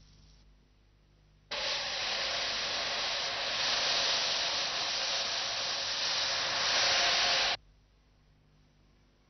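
A loud, steady hiss that starts abruptly about a second and a half in and cuts off just as suddenly some six seconds later, with faint hum before and after.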